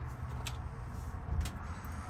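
Two light clicks, about half a second and a second and a half in, from small metal lock parts being handled during rekeying, over a steady low hum.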